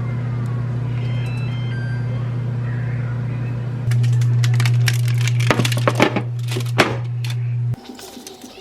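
A steady low electrical hum from a running appliance or motor, which gets louder about four seconds in and cuts off abruptly near the end, with a few sharp clatters and knocks in between. Faint background music plays underneath.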